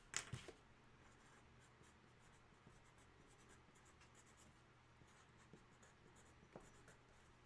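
Near silence: quiet room tone, with a few soft clicks at the very start and faint scattered ticks later.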